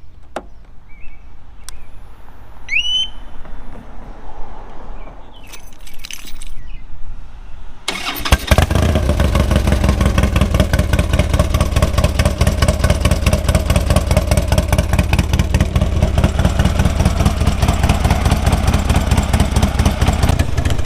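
Harley-Davidson V-twin engine starting about eight seconds in, then idling with an even, pulsing exhaust beat as it warms up after a fresh oil, transmission and primary fluid change.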